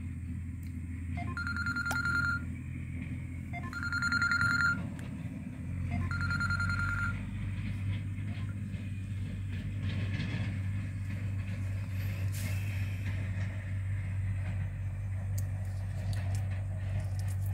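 Three electronic beeps, each about a second long and about two seconds apart, over a steady low rumble that grows louder about six seconds in.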